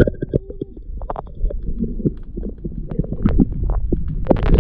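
Muffled underwater sound of a submerged camera: a low rumble of moving water with many knocks and bumps against the housing. Sharper splashes come near the end as it breaks the surface.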